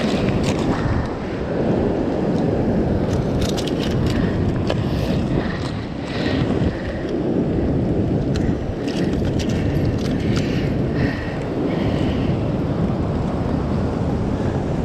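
Wind buffeting the microphone over the wash of surf on the rocks, with scattered short clicks and crackles.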